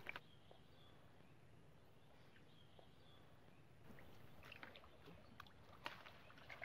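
Near silence with faint sloshing of shallow water, and a few small splashes and clicks in the second half as a mesh net is worked through the water by hand.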